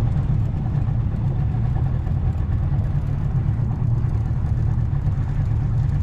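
Boat engine running steadily at low speed, a constant low rumble.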